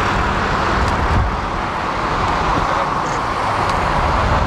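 Boeing 777-300ER's GE90 jet engines running at taxi thrust, a steady rushing noise with no rise in pitch, heard across the airfield.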